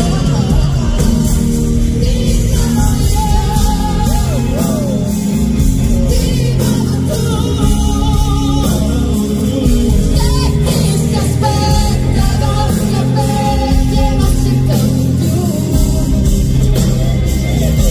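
Live pop-rock band playing, with a male voice singing lead over electric guitar, drums and grand piano, heard through the arena's sound system from the audience.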